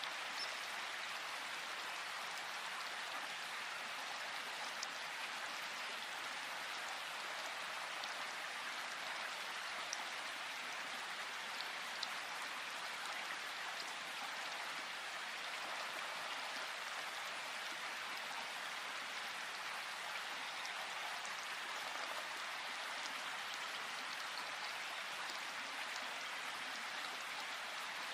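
Gentle rain falling steadily, an even hiss with a few distinct drops ticking now and then.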